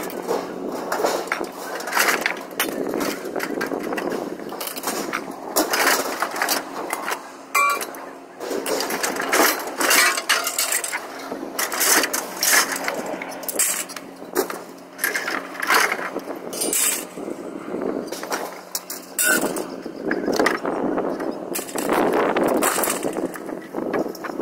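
Scrap metal clanking and crashing again and again as pieces are thrown off a trailer onto a scrap pile, over a steady low hum.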